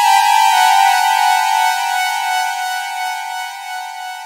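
Sonic Charge Synplant software synthesizer holding a single high note rich in bright overtones, slowly fading as its volume slider is pulled down.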